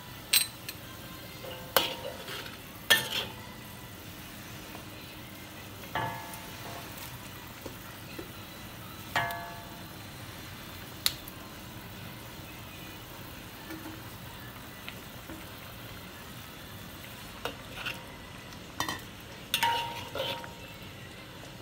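Steel spatula scraping and clanking against a wok while ground meat and potato slices cook in a simmering, sizzling sauce. Sharp metal strikes, some ringing briefly, come near the start, twice in the middle, and in a quick run near the end as the potatoes are stirred in, over a steady sizzle.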